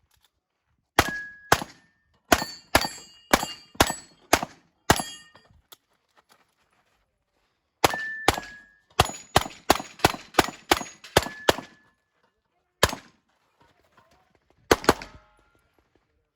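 Rapid pistol fire during a USPSA stage run: about twenty shots in quick strings with a pause of a couple of seconds in the middle, then a few spaced shots near the end. Several shots are followed by a short metallic ring, typical of steel targets being hit.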